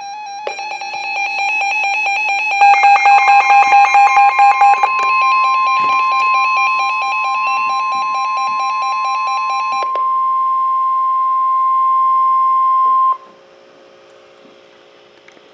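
NOAA Weather Radio warning alarm tone: one steady high tone held for about ten seconds, then cutting off abruptly, the attention signal of a warning-level alert. For most of its first half it overlaps a rapidly pulsing electronic beeping of several pitches. After the tone stops only faint radio hiss remains.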